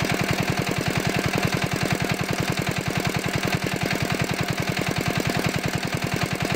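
An engine running steadily at idle, with a fast, even beat that does not change.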